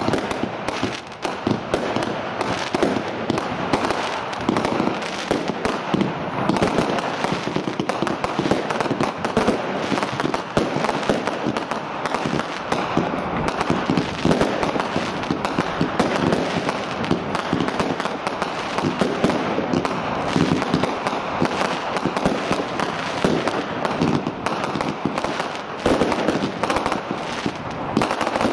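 Professional aerial fireworks display: a dense barrage of rapid, overlapping bangs and crackles from shells bursting, with no pause between them.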